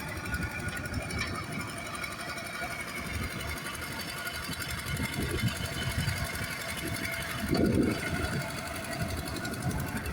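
An engine running steadily with a rapid rhythmic clatter, and a louder low swell about three-quarters of the way through.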